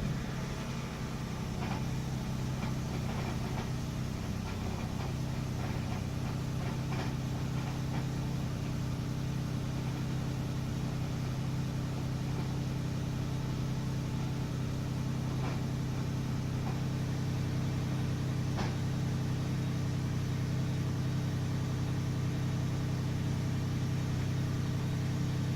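2012 Lexus 450h's V6 engine catching on a cold start and then running steadily with a low hum, with scattered faint clicks over it: the cold-start rattle the owner is showing.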